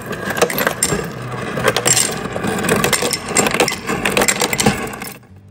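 Ice cubes clattering and rattling from a refrigerator's ice maker, a dense run of hard clicks that stops abruptly near the end. The ice is the sign that the repaired refrigerator is making ice again; its lack of ice had been the sign of the fault.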